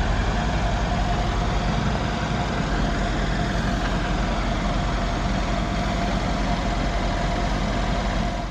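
Mercedes-AMG E63 wagon's twin-turbo 5.5-litre V8 idling steadily, a low even rumble with a steady hum on top.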